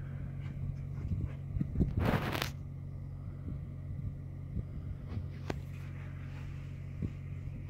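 Portable generator engine running steadily with a low hum. There is a brief scrape about two seconds in and a few light taps later.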